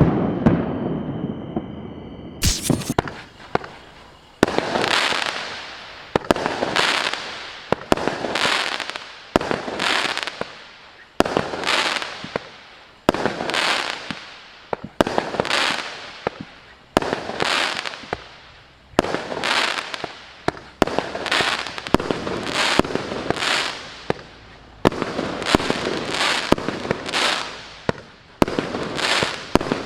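Maxsem New Times GWM6602 66-shot fireworks cake firing, starting about two and a half seconds in. Shots go off at an even pace of about one a second, each a sharp bang followed by a fading crackle.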